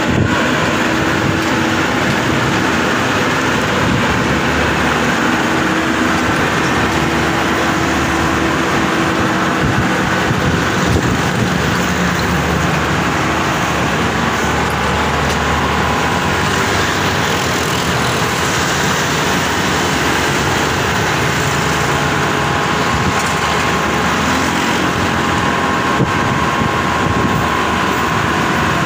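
Tracked rice combine harvester (Bimo 102) running steadily as it crawls along on its crawler tracks. A steady whine joins the engine noise about halfway through.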